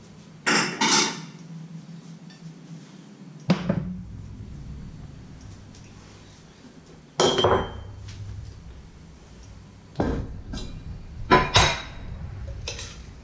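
Crockery and cookware clattering in a series of separate knocks and clinks: a china plate set down on a glass-ceramic cooktop and a metal spoon knocking and scraping in a steel pot while serving. A steady low hum runs underneath.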